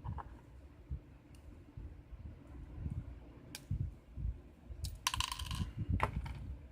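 Small metallic clicks from a picked lock and lockpicking tools being handled, with a brief rattling clatter about five seconds in and soft handling bumps.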